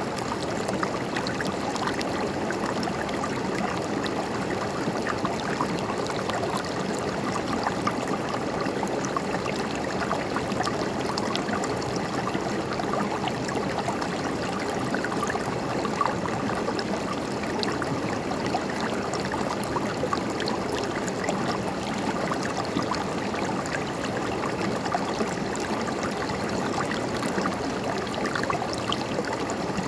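River water running over rocks: a steady rushing and gurgling, with many small splashes and trickles throughout.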